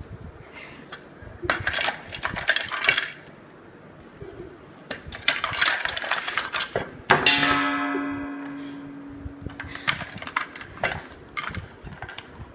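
Cutlery clattering and scraping against a ceramic plate in three short flurries, with one sharp clink about seven seconds in that rings on and fades over a couple of seconds.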